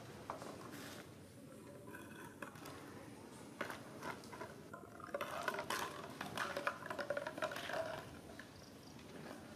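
Empty plastic bottle knocked, crinkled and scraped against concrete as a baby macaque handles it. The clicks and crackling come in scattered bits at first, then pile up for a few seconds in the second half.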